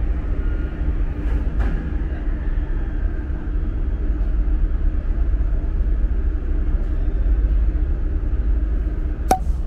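Steady low rumble of a ferry's engines and machinery, with faint steady hums above it. A single sharp click near the end.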